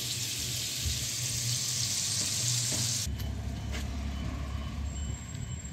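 Food sizzling steadily in a frying pan for about three seconds. It cuts off abruptly to a low wind rumble on the microphone while riding a bicycle.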